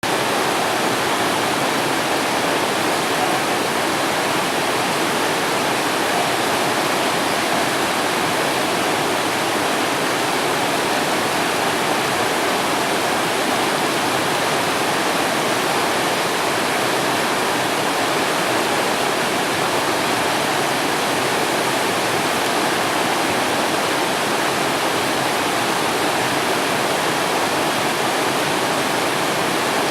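River water rushing: a steady, even flow of noise with no breaks or single splashes standing out.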